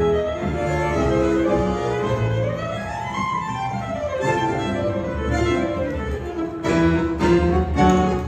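Live tango band of keyboard, double bass and bandoneon playing a tango. A melody climbs and falls back about three seconds in, and hard accented chords come in the last two seconds.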